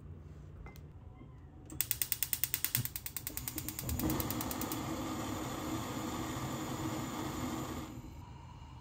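Gas stove burner's piezo igniter clicking rapidly, about ten clicks a second. The burner then catches and the gas flame hisses steadily for about four seconds before the sound drops away.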